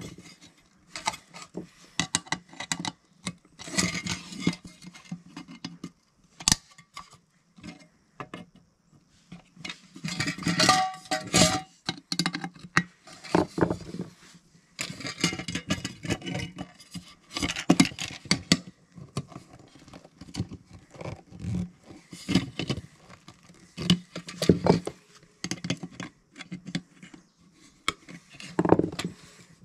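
Screwdriver and pliers working a 3/4-inch knockout out of a sheet-metal electrical box: irregular metal clinks, taps and scraping as the knockout disc is pried and twisted loose.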